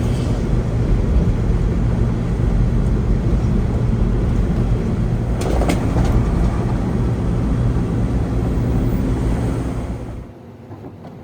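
Steady low road and engine rumble of a vehicle driving, with a couple of brief knocks about halfway through; the rumble drops away abruptly about ten seconds in.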